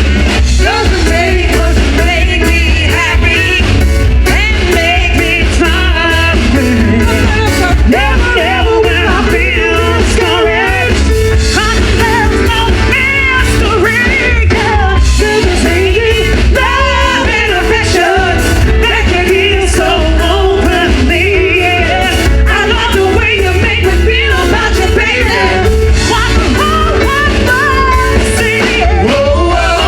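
Live band playing Motown-style music with a singer, over a steady drumbeat and strong bass.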